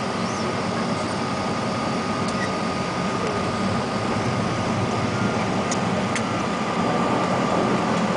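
Cabin noise of a de Havilland Canada Twin Otter rolling out on a sand beach after landing. Its two PT6A turboprop engines and propellers run with a steady drone and a constant whine, growing slightly louder near the end.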